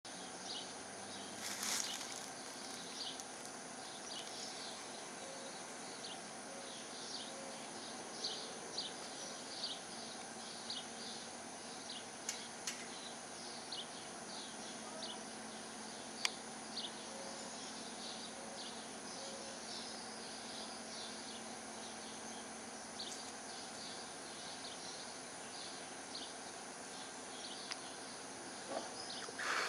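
Backyard ambience: a steady hiss with many short, high chirps scattered throughout from insects and birds, and a few sharp clicks.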